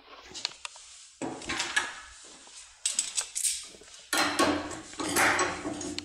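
Metal clinks and rattles of lock cylinders and locksmith tools being handled on a workbench, in several short bouts with sharp clicks.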